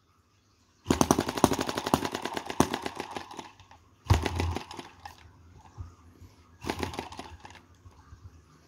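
Miniature four-stroke sideshaft hit-and-miss model gas engine, spark-ignited, flicked over by hand and firing in a fast run of sharp pops for about two and a half seconds before dying. Two shorter bursts of firing follow after further flicks of the flywheel.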